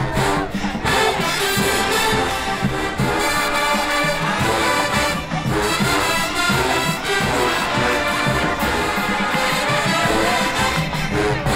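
Marching band playing a brass-heavy tune, with trombones and trumpets carrying it, loud and without a break.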